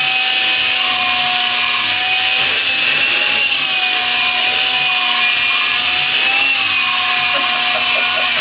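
Vacuum cleaner running steadily while grooming a cat's coat, its motor whine dipping and rising slightly in pitch.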